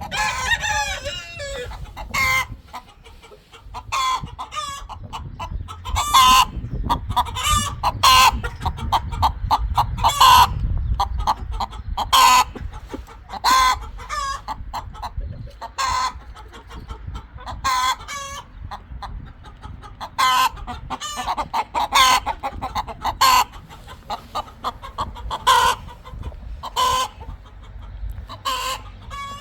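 Flock of chickens clucking, with short sharp calls every second or two; a rooster's crow trails off with a falling pitch right at the start.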